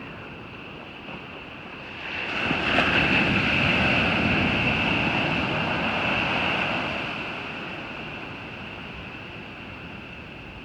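Ocean surf: a wave breaks and washes up the beach, swelling about two seconds in and fading away over the next five seconds.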